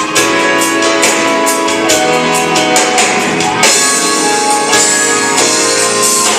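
Live band music: a drum kit keeping a steady beat under guitar and sustained keyboard chords.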